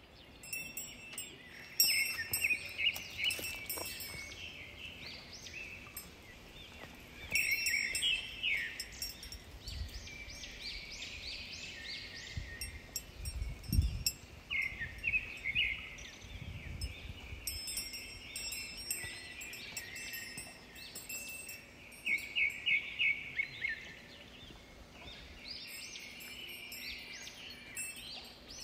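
Small birds calling outdoors: repeated runs of short, quick chirps that come and go through the whole stretch. A single low thump sounds about halfway through.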